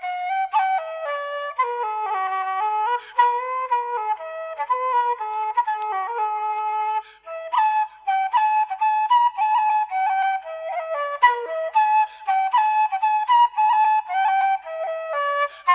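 Irish traditional flute playing a tune with no accompaniment. For the first seven seconds a second, lower melody line sounds with it. After a brief break the flute carries on alone with quick, ornamented notes.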